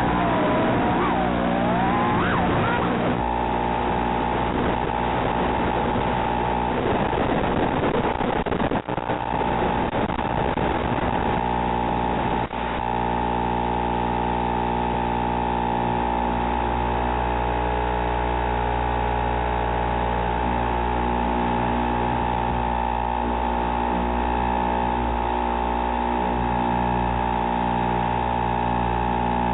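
Audio of a raw analog FPV video feed. For the first few seconds an electrical whine glides up and down in pitch with the 3-inch toothpick quad's motors, then stops. After that there is a steady electrical hum made of several fixed tones, the loudest mid-pitched.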